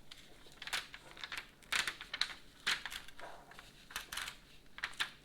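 Paper crinkling and rustling in a series of short, sharp crackles as the yellow backing sheet is peeled off stencil transfer paper.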